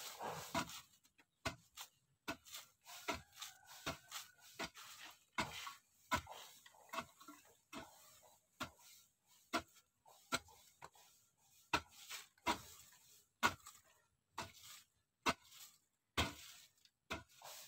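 Hoe chopping into packed dry soil, a string of dull strikes at an uneven pace of roughly one a second.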